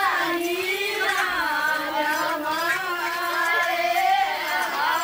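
Women singing a traditional folk song together, in long, wavering held notes.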